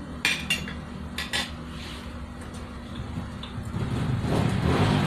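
A metal spoon clinking against ceramic bowls and cups on a table: a few sharp clinks in the first second and a half. Near the end a low rumble builds up.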